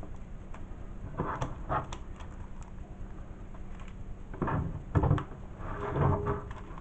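Handling sounds from a comic book being moved on a table: a few soft knocks and rustles, the loudest about five seconds in.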